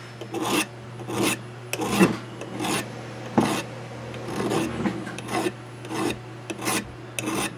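Flat hand file rasping back and forth over a steel rifle trigger guard in about a dozen regular strokes, roughly one and a half a second, filing off the scale from the metal before it is polished.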